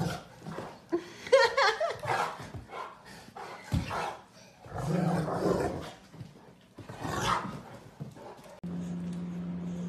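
Two dogs play-fighting, a Great Dane and a long-haired brown dog, with irregular bursts of growls and barks. Near the end a steady low drone sets in.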